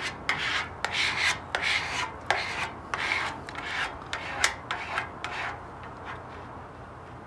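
Repeated rubbing strokes across wet decal transfer paper on a motorcycle fuel tank, working the soaked paper so it lets go of the vinyl. The strokes come roughly two a second and stop about five and a half seconds in.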